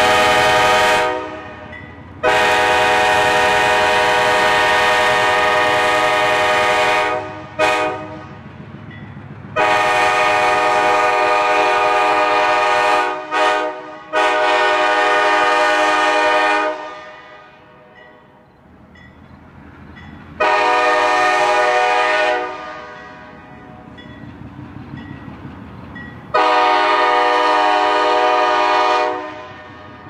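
Locomotive air horn, a Leslie K5LA five-chime, sounding a chord in a series of long blasts with one short toot about eight seconds in, the longest broken by quick stutters. A low rumble from the approaching train runs under and between the blasts.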